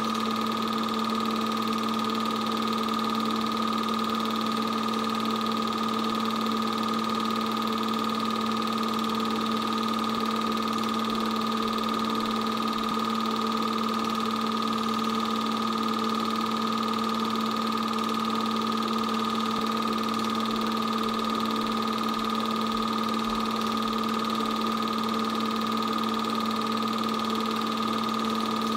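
8mm film projector running, a steady mechanical whir and hum that holds a few constant tones and never changes.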